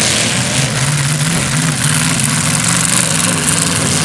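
Several demolition derby cars' engines running and revving together in a loud, steady drone whose pitch wavers up and down.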